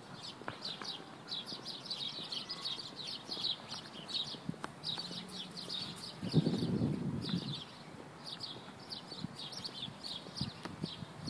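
Many small birds chirping rapidly and without a break, with scattered footsteps and a brief louder low rumble about six seconds in.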